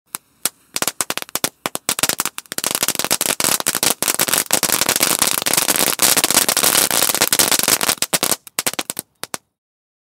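Crackling fireworks: a few scattered sharp pops build into a dense, rapid crackle about two and a half seconds in, then thin back to sparse pops near the end and stop.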